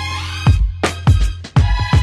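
Background music from a Christmas song, in an instrumental stretch between sung lines: a steady deep bass and held notes, with sharp drum hits about half a second in and several more in the second half.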